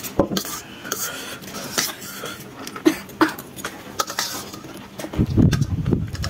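Metal spoons clicking and scraping on steel plates, with mouth noises of chewing and slurping spicy instant noodles. A louder, muffled rush of noise comes about five seconds in.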